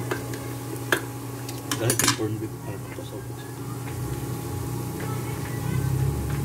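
Metal spoons and a cooking pot clinking, a single click about a second in and then a quick cluster of clinks, over a steady low hum.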